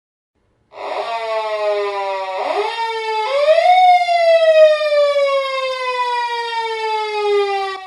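Japanese police patrol car siren wailing, starting about a second in. Its pitch climbs quickly and then glides slowly down, the last fall long and drawn out over about four seconds.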